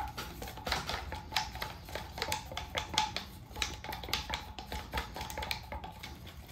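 A stir stick clicking and scraping against the inside of a clear plastic cup as paint is mixed, in quick, irregular taps.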